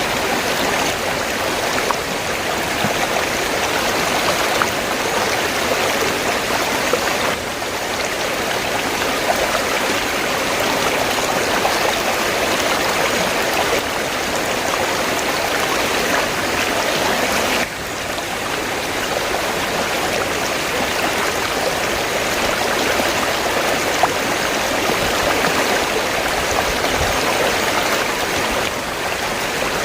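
River water flowing steadily over rocks, an even rushing sound that briefly drops a little in level three times.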